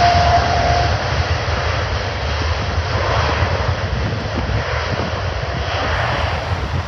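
Boeing 787 with twin GE GEnx-1B turbofans at takeoff thrust as it rotates and lifts off: a loud, steady jet roar with a deep rumble that eases slightly in level. A thin steady whine fades out about a second in.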